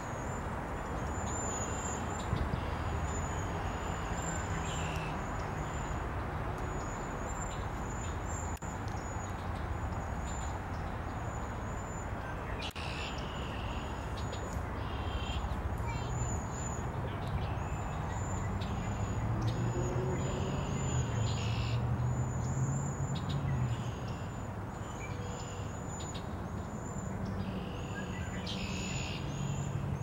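Cedar waxwings giving their thin, high-pitched trilled calls over and over, with lower red-winged blackbird calls mixed in. A steady low rumble runs underneath and grows louder about two-thirds of the way through.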